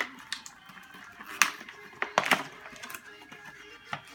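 Irregular clicks and crinkles of a plastic Nerf toy and its packaging being handled, with the loudest cluster of clicks about two seconds in.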